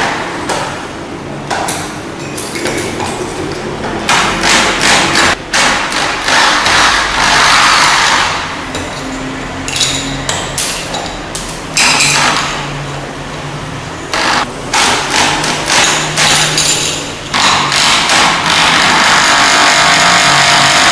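Repeated hammer-like knocks and clatter of metal work, with stretches of loud steady noise between the knocks.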